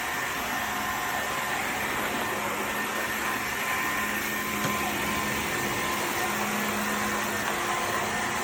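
Dreame H12 Pro cordless wet-dry vacuum-mop running steadily, a constant motor whine with a rushing airflow.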